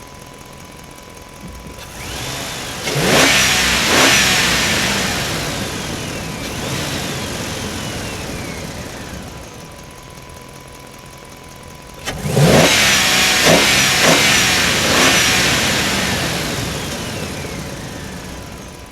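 An engine revved twice; each time the pitch jumps up sharply and then falls away slowly over several seconds. A faint steady high tone sits underneath.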